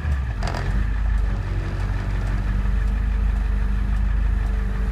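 Non-turbo 7.3-litre IDI V8 diesel in a 1991 Navistar bus, its revs dropping off from full throttle and settling into a steady low idle. A brief click comes about half a second in.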